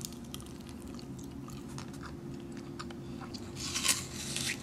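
Biting into and chewing a caramel apple coated in chopped nuts: soft crunching and chewing, with a louder crunch of a bite about four seconds in.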